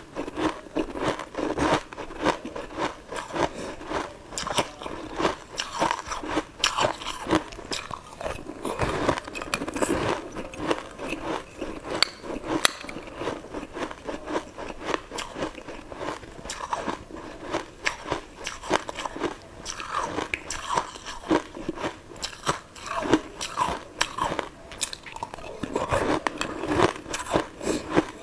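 Close-miked eating sounds: many irregular crunching bites and chewing into a round, translucent treat taken from a spoon.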